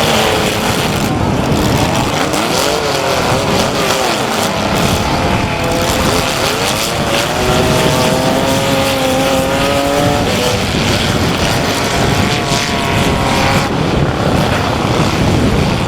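Several compact derby cars' engines running hard at once, revving up and down in overlapping rises and falls, over steady noise from tires and machinery.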